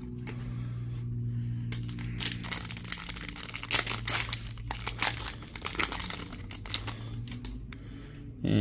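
Trading card pack wrapper crinkling and tearing as the pack is opened, a dense run of crackles from about two seconds in, over a steady low hum.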